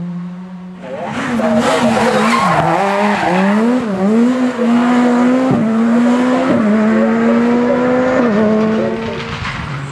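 Škoda Fabia S2000 rally car's four-cylinder engine revving hard through a sliding corner, starting about a second in. Its pitch climbs and then drops sharply several times as it shifts or lifts. Tyre and gravel noise sits over the engine in the first few seconds.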